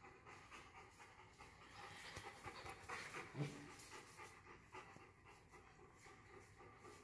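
Faint, rhythmic panting of a Bernese Mountain Dog, with a brief low thump about halfway through.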